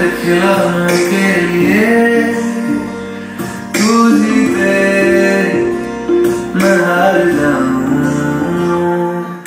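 Recorded song with acoustic guitar strumming under a sung melody, played loud over a sound system for a dance.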